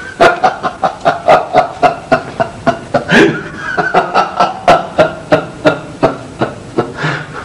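A man laughing loudly and at length, a steady run of about three 'ha' pulses a second that stops near the end.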